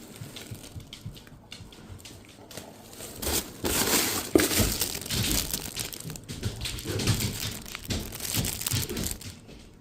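Plastic treat packaging crinkling and rustling in irregular handfuls, louder from about three seconds in.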